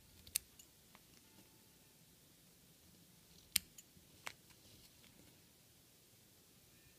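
Small embroidery scissors snipping hand-stitched basting threads through cloth: a few sharp snips, the loudest about three and a half seconds in, with near quiet between.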